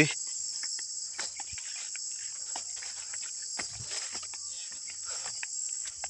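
Steady, high-pitched chorus of insects that runs on without a break, with scattered faint clicks and rustles.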